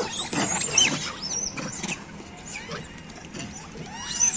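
Scattered high-pitched animal squeaks and chirps: short calls that rise and fall in pitch, most of them in the first second and again near the end.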